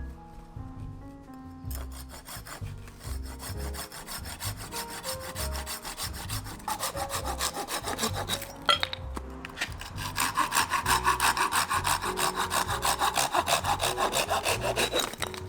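Rapid, rhythmic back-and-forth scraping strokes on wood, like hand sawing, growing louder in the second half, over background music.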